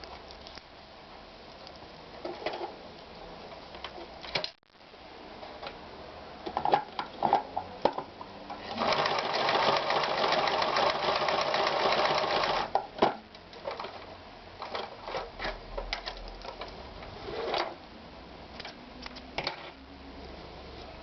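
Victoria 739 sewing machine running a stretch of stitching for about four seconds in the middle. Before and after it come scattered clicks and knocks from the machine's mechanism.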